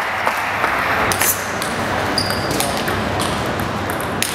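A table tennis ball clicking off bats and the table, a few scattered sharp hits, the crispest one near the end, over the steady background noise of the hall.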